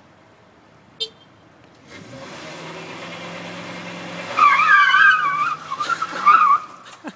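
A short click about a second in, then a Ford F-150 pickup's engine revving up from about two seconds in, followed by a loud wavering tire squeal for about two seconds as the truck pulls away.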